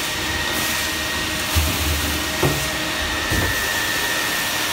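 A 3 kW barrel-top wet/dry swarf vacuum runs with a steady rush of air and a thin high tone as its hose sucks metal chips off a machine-tool table. A few brief knocks come about one and a half and two and a half seconds in.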